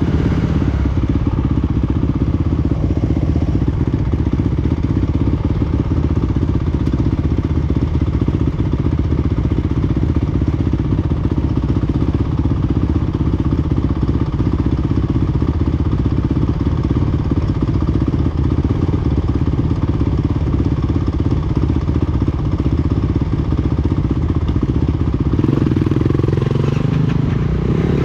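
Freshly overhauled Honda CRF230F air-cooled single-cylinder four-stroke engine running steadily at an even speed during a long stress test.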